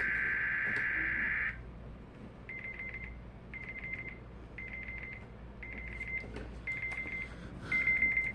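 A weather radio's digital alert header, a harsh warbling data burst, cuts off about a second and a half in. Then a weather alert receiver's alarm beeps in short rapid groups, about one group a second, signalling a severe thunderstorm watch.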